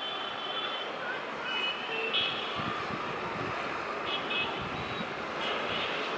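Outdoor ambience: a steady rush of distant traffic, with a few short high-pitched beeps or chirps now and then.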